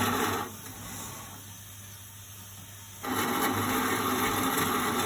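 A toy washing machine's small electric motor running with a steady hum. It cuts out about half a second in and starts up again about three seconds in.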